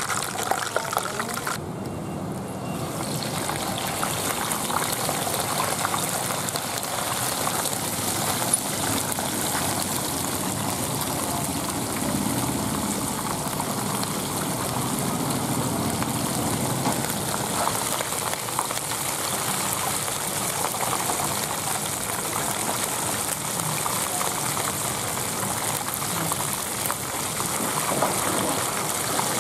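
Hot oil in a wok sizzling and bubbling steadily as whole parrotfish are deep-fried in it.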